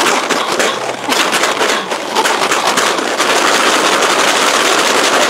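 Two homemade paper-bag maracas filled with dried beans being shaken, a loud, dense rattle of beans inside the paper that thickens into a continuous shake after about two seconds.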